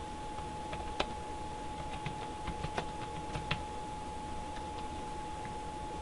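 Computer keyboard typing: irregular clicking keystrokes, most of them in the first three and a half seconds, with a few faint ones later. A steady tone and faint hiss sit underneath.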